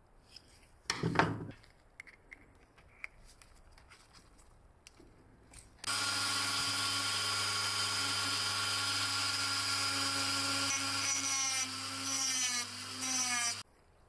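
Rotary tool fitted with a small abrasive cut-off disc, switched on about six seconds in and running at a steady high pitch. Near the end its pitch sags several times as the disc bites into a wood block, and then it stops abruptly. A short scrape of handling about a second in.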